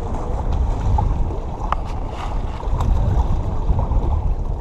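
Wind rumbling on the microphone over small waves washing against the jetty's rocks, with a few faint ticks.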